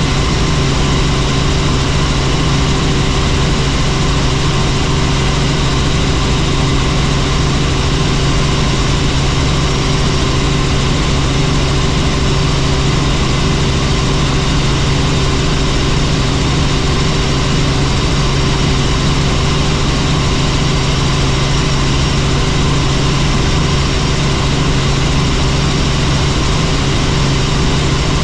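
Helicopter in flight: steady engine and rotor noise with a constant low hum, unchanging throughout.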